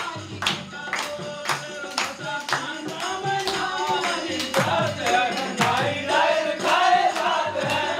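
A group of men singing a Hindi folk-style song together, keeping time with hand claps about twice a second. The voices grow fuller and louder from about the middle on.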